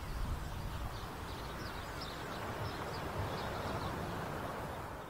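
Seaside ambience: a low wind rumble on the microphone over a steady hiss of surf, with faint short high bird chirps, fading out near the end.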